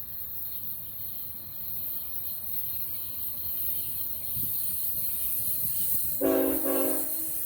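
Approaching freight train led by Union Pacific locomotive #2588: a steady rumble and high hiss growing louder. About six seconds in, the locomotive's air horn sounds one blast of about a second, several notes sounding together as a chord.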